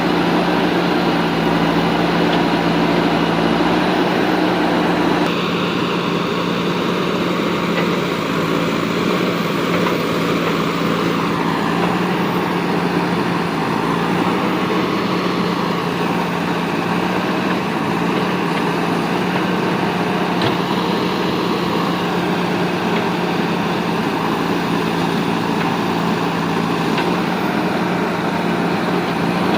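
Diesel engine of a JCB 3DX backhoe loader running steadily at work, its note shifting slightly about five seconds in.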